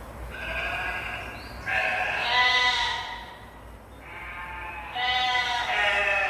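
Sheep bleating: two long bleats about four seconds apart, each starting softer and then growing louder.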